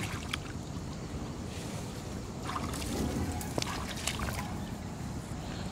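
Shallow, muddy canal water splashing and trickling as a person wades through it and scoops it with his hands, with a few short sharp splashes.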